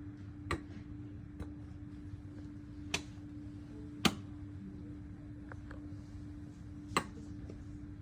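Maquet ventilator running its automated pre-use check: five sharp clicks at uneven intervals, the loudest about four seconds in, over a steady low hum.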